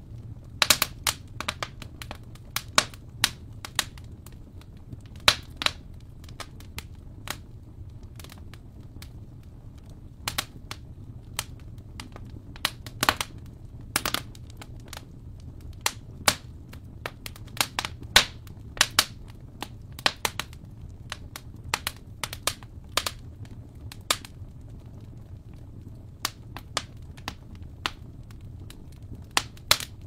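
Wood fire crackling in a fireplace: irregular sharp pops and snaps over a low, steady rumble.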